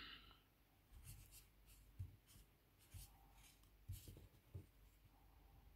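Near silence with faint, scratchy rustles and ticks, roughly one a second, as a fine 1.5mm crochet hook works cotton thread through stitches in the hands.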